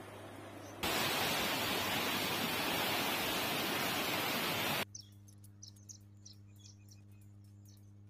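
Rush of fast-flowing Godavari floodwater, a loud steady hiss that starts suddenly about a second in and cuts off sharply near five seconds. After it, quieter outdoor ambience with a low steady hum and a string of short, high chirps.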